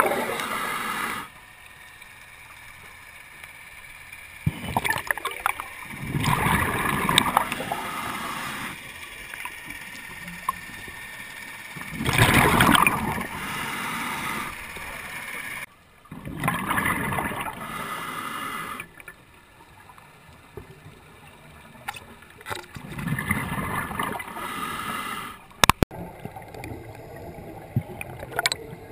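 Scuba regulator heard underwater: surges of exhaled bubbles gurgling and rushing every few seconds, each lasting a second or two, with quieter stretches between.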